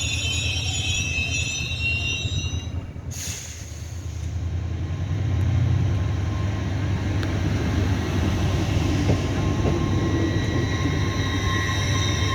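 A train on the move, with a steady low rumble and high-pitched squealing tones. The squeal stops abruptly about three seconds in and returns faintly near the end.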